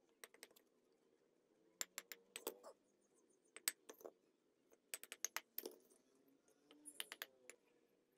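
A metal bricklaying tool tapping and knocking on bricks as they are set in place: sharp clicks in short clusters of two to six, repeated every second or two.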